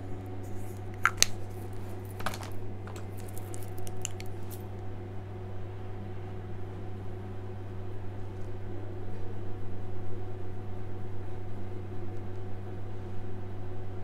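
A steady low hum, with a handful of small clicks and taps in the first few seconds from makeup products being handled.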